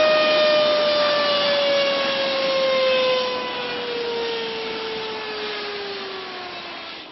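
Helicopter turbine engine winding down: a whine slowly falling in pitch and fading over a rushing hiss.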